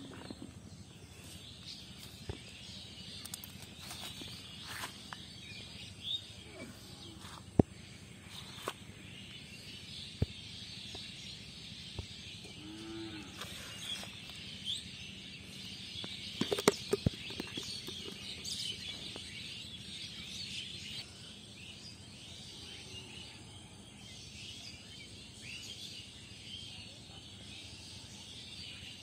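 Outdoor pondside ambience: many small bird chirps over a steady high hiss, broken by a few sharp clicks, with a cluster of them a little past halfway.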